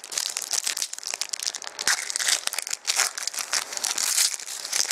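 Wrapper of a hockey trading card pack crinkling and tearing as hands pull it open: a dense run of sharp crackles.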